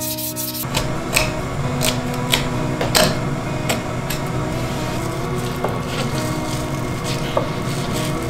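A Japanese kitchen knife filleting a fish on a wooden cutting board: slicing and scraping through flesh and bone, with irregular sharp clicks and knocks of the blade against the board. At the very start, the last strokes of the blade on a whetstone.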